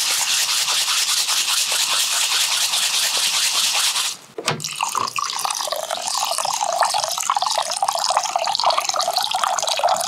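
Rice being washed by hand in cold water, a fast scratchy swishing of the grains for about four seconds. After a short break, water is poured steadily into the pot to soak the rice.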